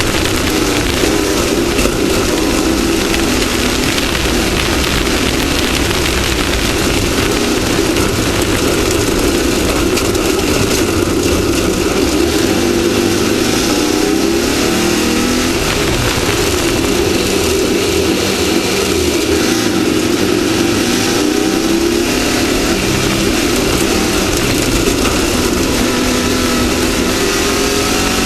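Off-road race vehicle's engine running hard at a steady high level, its pitch rising and falling a few times in the second half and near the end, over constant rushing road and wind noise.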